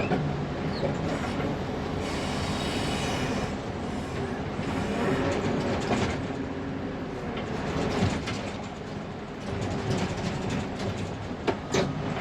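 Fermec TLK760 backhoe loader's diesel engine running steadily under load as it works a loaded bucket, heard from inside the cab. A few sharp knocks come near the end.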